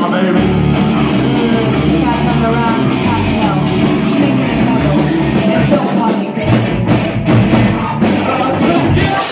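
Live rock band playing: electric guitars, bass and drums under a man and a woman singing together. About six to eight seconds in the band plays a few short stop-start hits.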